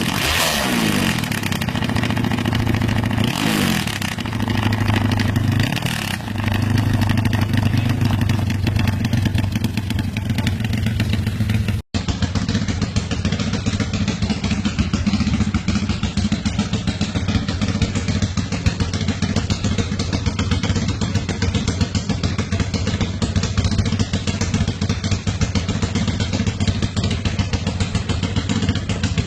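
Motorcycle engines with loud aftermarket exhaust pipes running. The first bike is revved a couple of times and then held at a steady speed. After a sudden cut about twelve seconds in, a second bike runs steadily with a rapid, pulsing exhaust note.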